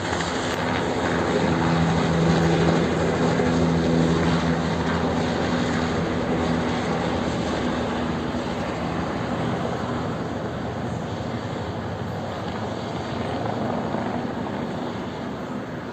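Helicopter flying overhead, a steady rotor and engine drone with a low hum, loudest in the first few seconds and slowly fading as it moves off.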